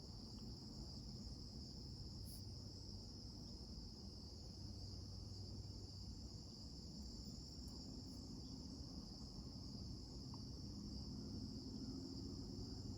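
Crickets chirping in a steady, unbroken high trill, faint under a low background rumble.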